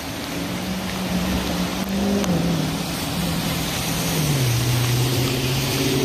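Rushing floodwater of a storm-swollen creek, with a passing vehicle's engine hum on top that drops in pitch about two seconds in and again about four seconds in.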